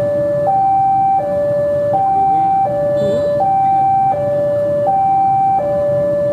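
A two-tone electronic warning alarm alternating steadily between a high note and a lower note, each held a little under a second, over the low rumble of a slowly approaching diesel locomotive.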